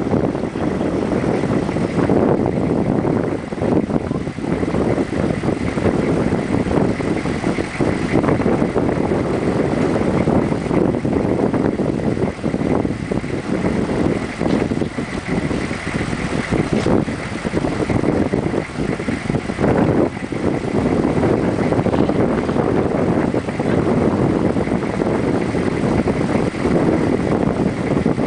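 Steady rush of a fast glacial river mixed with a vehicle engine running, most likely the Nissan Patrol's, with wind buffeting the microphone.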